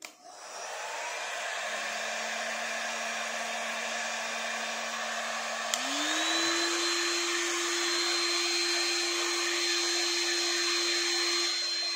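2000-watt hot air gun running, its small blower fan pushing air with a steady hum and a thin high whine. About six seconds in it clicks and the hum rises in pitch as the fan speeds up. Only slightly warm air comes out: the fan motor works but the heater does not heat.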